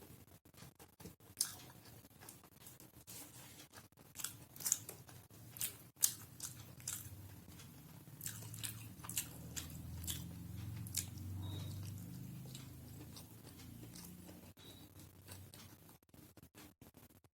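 Close-miked eating: a person biting and chewing food, with sharp crunchy clicks scattered throughout and a longer, lower, muffled stretch of chewing about halfway through.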